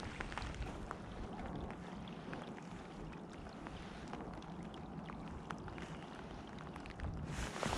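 Wind rumbling on the microphone over a steady wash of water noise, with many faint scattered ticks. About seven seconds in, the sound turns brighter and fuller.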